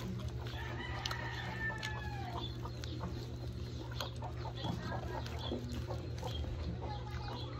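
Chickens clucking, with one longer drawn-out call about a second in and short calls scattered through, over a steady low hum.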